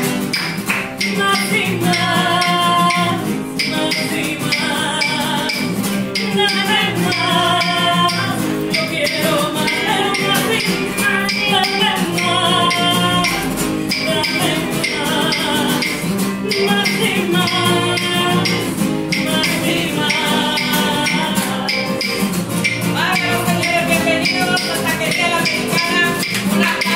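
A woman singing live with a small acoustic group: strummed acoustic guitar under her voice and a rattling hand percussion instrument keeping a steady rhythm.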